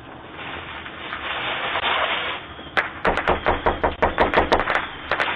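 A rush of noise swells for about two seconds and dies away, then a quick run of sharp knocks, several a second, starts about three seconds in and keeps going.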